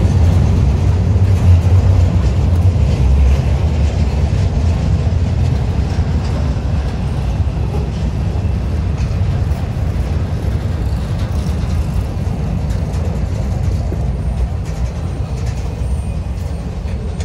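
Diesel locomotives of a freight train running: a heavy low rumble that is loudest in the first few seconds and slowly fades.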